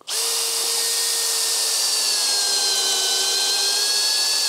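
Power drill running continuously under load, boring a bolt hole into a timber roof beam at a metal wall-anchor strap. It starts and stops abruptly, and its pitch sags slightly midway as the bit bites, then recovers.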